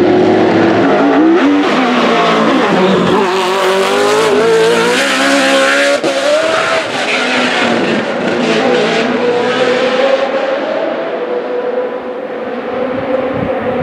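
Judd racing V8 in a BMW 320 E36 hillclimb car, run hard at high revs. The pitch climbs, drops and climbs again through the gears, then holds high and rising in the second half.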